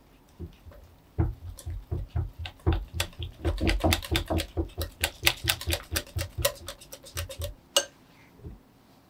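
Wire whisk beating a thick cream cheese and white chocolate batter in a glass bowl: quick, even clicks of the whisk against the glass. It stops with a single sharper clink near the end.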